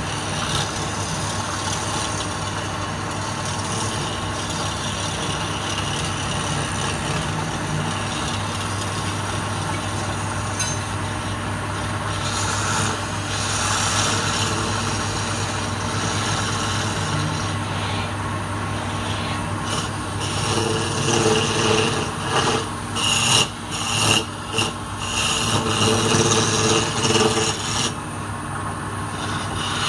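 Wood lathe running with a steady hum while a flat scraper cuts the spinning palm-wood cylinder, a continuous scraping and rasping of steel on wood. From about two-thirds of the way in, the scraping grows louder and comes in uneven surges.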